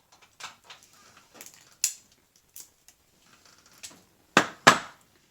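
Small ferrite-core transformer from a fluorescent ballast being handled and worked apart by hand: scattered light clicks and scrapes, then two sharp, loud clicks close together near the end.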